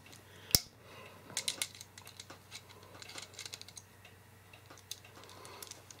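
Faint metallic clicks and ticks of a small Phillips screwdriver backing a screw out of the jaw of a ratcheting coax crimp tool, while the tool is handled. One sharper click comes about half a second in, then a scatter of light ticks.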